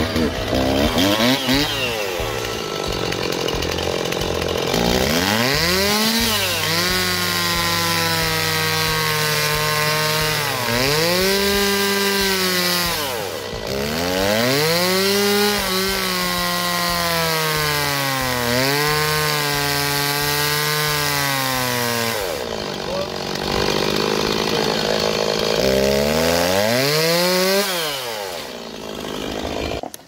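Gasoline chainsaw cutting along a spruce log. The engine revs up, holds under load in the wood and drops back again several times, then stops just before the end.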